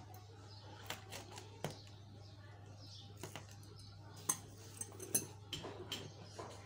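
Fingers rubbing and pressing on an inflated latex balloon and clear tape stuck to it: scattered rubbery squeaks and small clicks, with a couple of sharper taps in the second half, over a low steady hum. The balloon does not pop.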